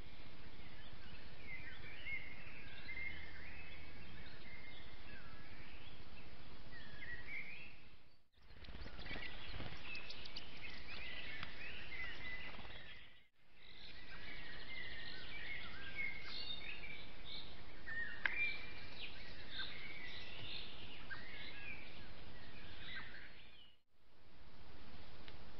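Wild songbirds singing and chirping over a steady hiss, broken by three brief fades to silence between clips. A few soft low knocks come about a third of the way in.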